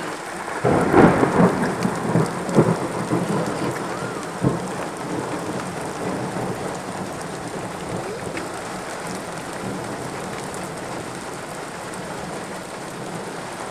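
Thunder: a sudden crack about a second in, crackling and rumbling for a few seconds, over steady rain that carries on after it fades.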